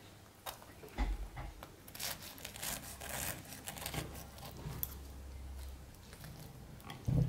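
Knife and fork cutting through the baked crust and filling of a slice of pie on a plate: scraping and tearing, with a few short clicks of metal against the plate.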